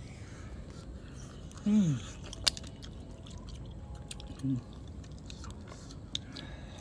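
A person eating and chewing, with many small sharp crunching clicks. A short falling hum of the voice comes a little before two seconds in, and a brief second one just after the middle.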